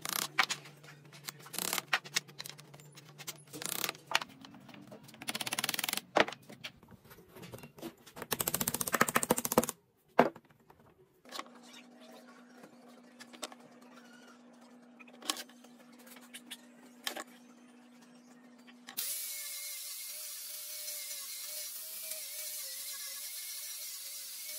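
Wooden blocks knocking and clacking on a workbench as they are pressed into place, with a short, loud rattling burst before the middle. Then a quieter stretch follows, with a low steady hum and a few clicks. About three-quarters of the way through, a hand-held angle grinder fitted with a sanding disc starts up and runs steadily, sanding the edges of the glued wood blocks.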